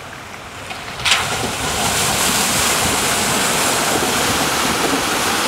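2019 GMC Sierra AT4 pickup driving through a shallow rocky creek. Its tyres throw up a loud, steady rush of splashing water that starts suddenly about a second in, after a quieter hiss of flowing stream.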